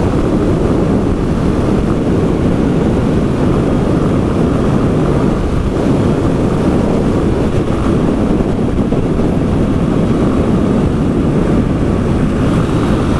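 Motorcycle under way: steady engine and road noise buried under heavy wind buffeting on the microphone.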